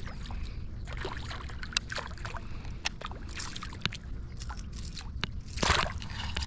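Small peacock bass splashing at the surface as it is reeled in to the bank, with short splashes and drips throughout. A louder splash comes near the end as a hand plunges into the water for the fish.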